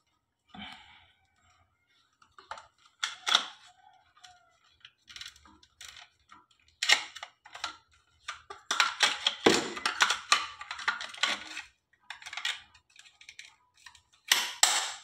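Hard plastic clicking and rattling as a battery pack is handled and fitted into an automatic urinal flush sensor's plastic housing, with the housing's cover being put back on. The clicks come in irregular clusters, busiest in the middle and again near the end.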